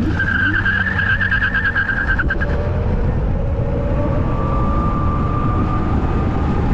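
Kaabo Wolf King GT Pro electric scooter launching hard on both motors: the tires screech in a fluttering squeal for the first couple of seconds, then a steady electric motor whine carries on over wind and road rumble as it picks up speed.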